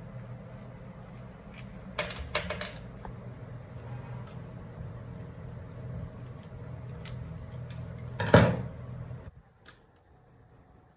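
Steady low machine hum with scattered clicks, a quick run of clicks about two seconds in, and a louder knock near the end; the hum cuts off suddenly soon after.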